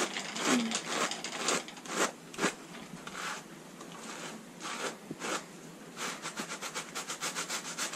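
A pair of hand carders drawn across each other through raw sheep's wool, making repeated short scratchy strokes. The strokes are spaced out at first and come quickly in the last couple of seconds.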